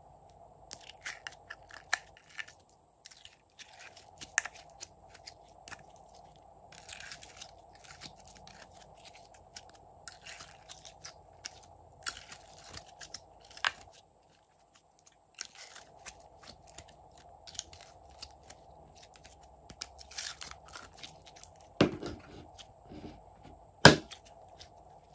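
Glossy slime being pulled out of a plastic tray and squeezed by hand, giving a run of sticky crackles and small pops, with one sharp pop near the end.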